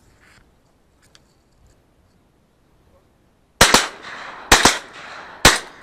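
Three shotgun shots about a second apart, each echoing across the open water, fired at passing ducks; the hunters take the shots for misses.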